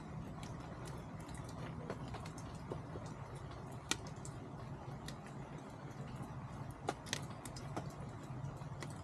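Chickens pecking and scratching at the ground as they feed: scattered light ticks and taps, with two sharper ones about four and about seven seconds in, over a steady low hum.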